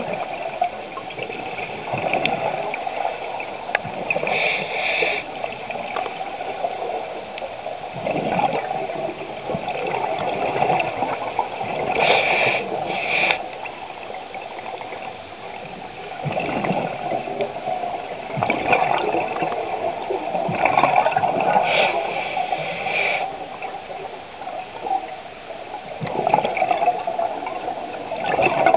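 Scuba diver breathing through a regulator underwater: exhaled bubbles gurgle out in swells every few seconds, with a brief hiss on some inhales.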